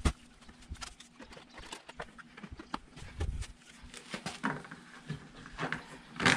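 Plastic gas cans being handled and set down on a concrete floor: a sharp knock at the start, scattered small clicks and dull thuds, and a louder clack near the end as the small can's spout and cap are worked.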